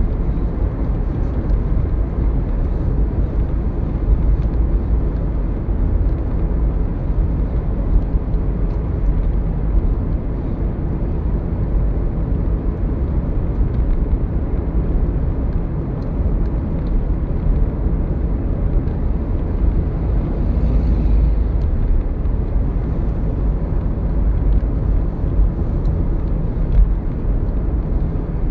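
Steady low rumble of a car driving at highway speed, engine and tyre noise heard from inside the cabin.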